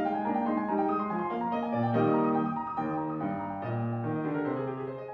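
Bösendorfer grand piano playing by itself, its artificial-intelligence system performing its own composition in chords and single notes. It grows quieter near the end.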